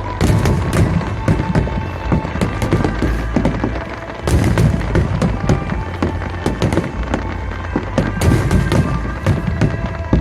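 A rapid barrage of aerial fireworks: many booms, pops and crackles in quick succession, easing briefly about four seconds in, then surging again. Music plays steadily along with the bursts.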